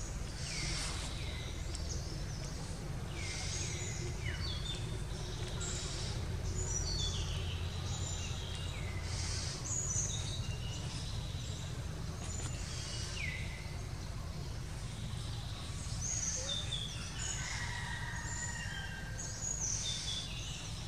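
Wild forest birds calling repeatedly with many short whistled notes, each sliding down in pitch, over a steady low background rumble.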